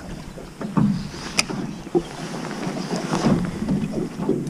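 Scattered light knocks and clicks in an aluminum jon boat, with one sharp click about a second and a half in, over a steady background hiss.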